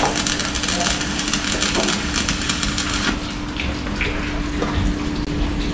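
Stick welder's arc crackling and sputtering as a weld is run on the steel hull plating, stopping abruptly about three seconds in. A steady low hum carries on underneath.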